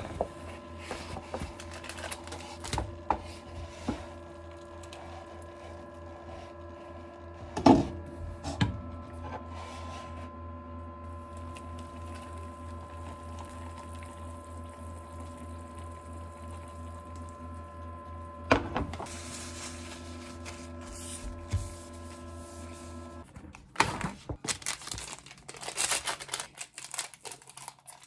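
Making an instant noodle cup: clicks and rustles of the cup and its packets with a couple of sharp knocks, hot water poured into the cup in the middle, then packets crinkling as they are torn open near the end. A steady appliance hum runs underneath and stops a few seconds before the end.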